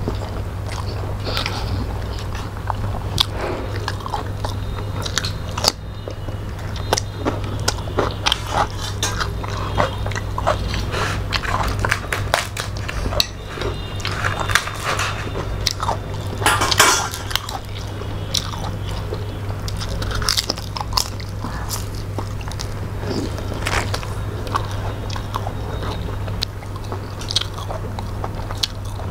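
Close-miked eating sounds from two people eating fish, chicken and rice by hand: irregular wet chewing, biting and lip smacks with occasional crunches. A steady low hum runs underneath.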